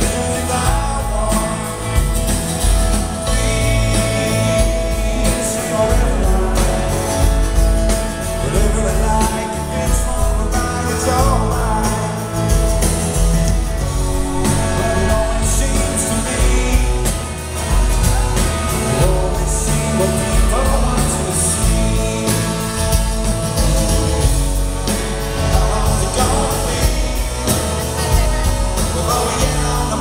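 Live rock band playing: a male lead vocal sung over strummed acoustic guitar, electric guitar and bass, loud and continuous, heard from the audience.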